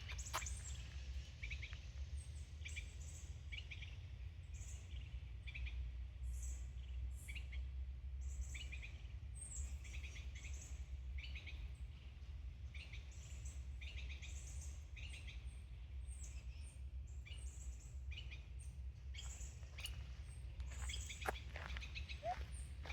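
Several birds chirping and calling in short, scattered notes, over a steady low rumble of background noise.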